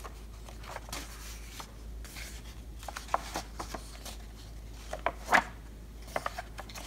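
Pages of a softcover paper workbook being flipped by hand: short paper rustles and flaps, with the loudest flap about five seconds in.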